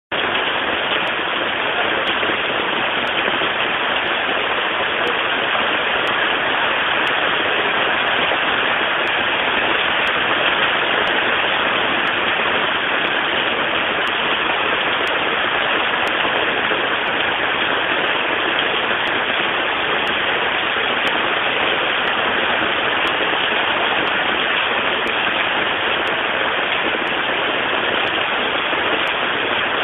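Heavy storm rain pouring steadily onto a flooded street, a constant loud hiss with no let-up.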